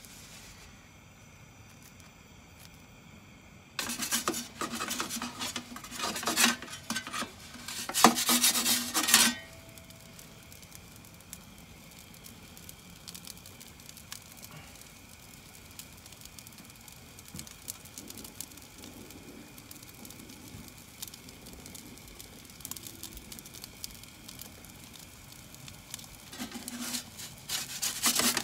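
A metal pizza peel scraping and rasping across the stone floor of a gas-fired Roccbox pizza oven in two spells: about four to nine seconds in, and again near the end as the pizza is lifted out. In between there is only a low steady hiss from the gas burner.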